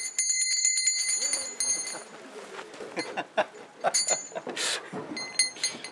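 Metallic jingling: quick clinking strokes with a high, sustained ringing tone, loudest in the first two seconds, then shorter jingles twice more near the end.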